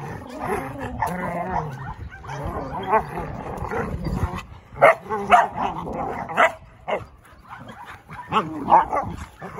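Dogs play-fighting: a Bernese mountain dog, a Bernedoodle and a cocker spaniel puppy growl and give sharp barks and yips. Low, wavering growls come first, then a run of short, sharp barks from about halfway. It is rough play, not aggression.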